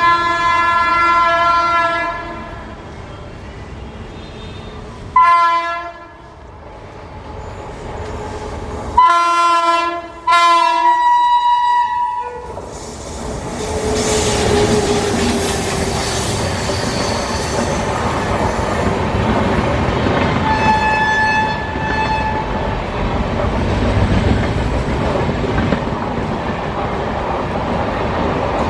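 A WAP-7 electric locomotive's horn sounding several blasts: a long one ending about two seconds in, a short one, then two more back to back. The train then runs past, with the steady loud noise of the locomotive and coaches over the rails and one more fainter horn note partway through.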